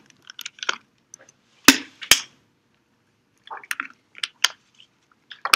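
Plastic water bottle handled close to the microphone: two sharp clicks about two seconds in, then scattered crinkling and crackling of the plastic.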